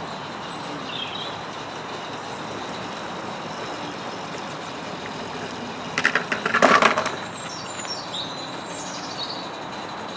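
A 16 mm scale live-steam model train running slowly on outdoor garden track over a steady background hiss, with a few bird chirps. About six seconds in, a brief burst of rapid clicking and rattling, the wagons' wheels clattering on the track.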